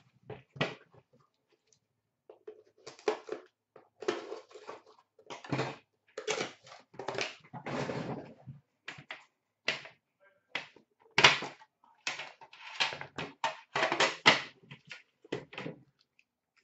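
Irregular knocks, scrapes and rustles of a hand working a tight-fitting box out of an Upper Deck The Cup metal tin and handling it, the box stuck in the tin.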